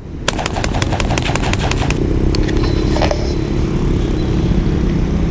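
Vehicle noise: a steady low rumble, with a run of rapid sharp clicks during the first two seconds.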